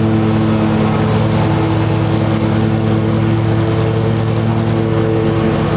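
Riding lawn mower engine running steadily while mowing, holding an even pitch.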